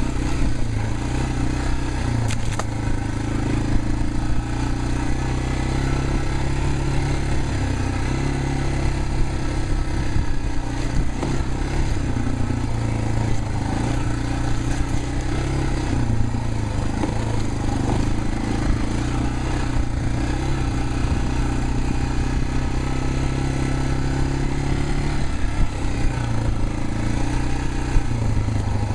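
Yamaha TW200's single-cylinder four-stroke engine running steadily at low revs as the bike is ridden, its pitch wavering a little. Occasional sharp knocks cut through it.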